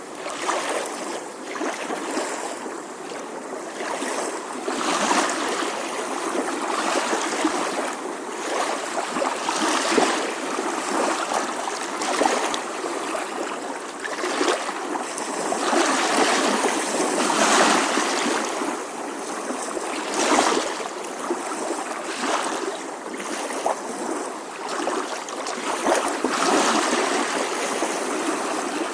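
Small ocean waves lapping gently on a shore, a continuous splashing wash that swells and ebbs every few seconds.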